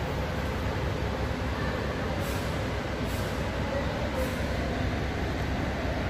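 Steady engine and road noise of a moving bus, heard from inside the passenger cabin.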